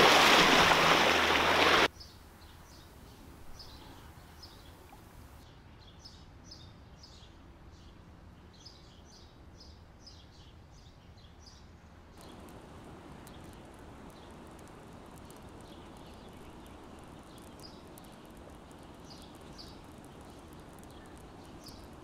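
A loud rushing noise for about the first two seconds, then faint outdoor ambience with small birds chirping over and over in short, high calls.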